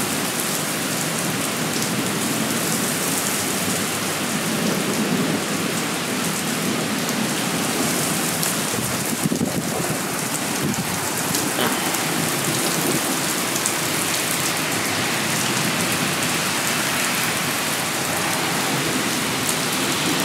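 Heavy thunderstorm rain pouring steadily, with wind, an even and loud hiss of water.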